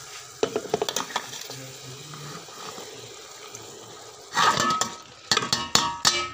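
A metal spoon clicks and scrapes against a cooking pot over a light sizzle of chicken frying in oil. About four and a half seconds in comes a loud rush as boiled moringa buds are tipped into the pot from a dish, followed by several sharp metal clinks with a short ring.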